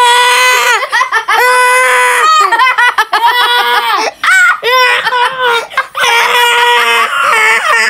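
A child laughing hard in long, high-pitched squeals, one after another with short breaks for breath.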